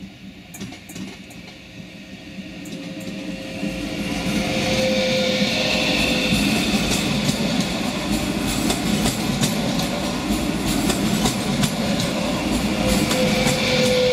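Electric multiple unit passenger train passing close by. Its running noise swells over the first few seconds and then stays loud, with clicking from the wheels over rail joints and points.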